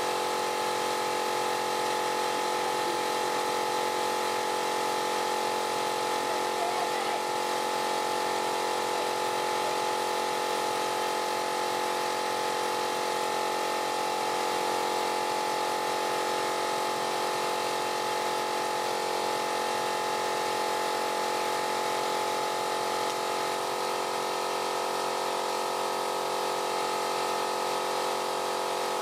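Wood lathe motor running steadily at constant speed, a steady hum with several fixed tones, while a handful of wood shavings is pressed against the spinning turned piece to burnish it.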